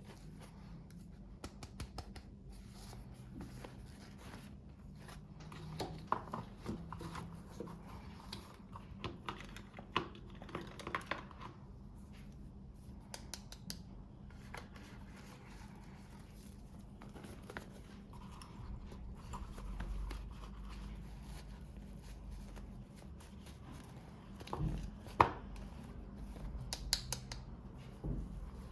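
Hands unboxing miniature toys: scattered small clicks, taps and rustling of packaging being opened and handled, with one sharper click about 25 seconds in.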